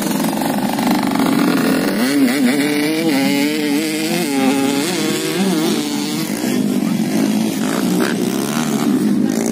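Modified two-stroke Yamaha FIZ R underbone motorcycles racing on a dirt track. The engine pitch swings up and down again and again as the throttle is worked, most plainly from about two to six seconds in.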